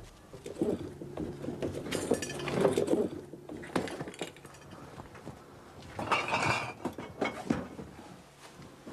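Irregular clinks, knocks and rustling as cardboard boxes holding glass bottles are handled and shifted in a search, with two busier spells of handling.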